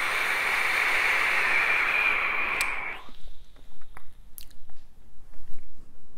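A long draw on a rebuildable dripping atomizer (a Raven clone fitted with a flat-wire coil): a steady hiss of air pulled through the atomizer while the coil vaporizes the e-liquid, stopping abruptly about three seconds in. Faint scattered clicks and pops follow.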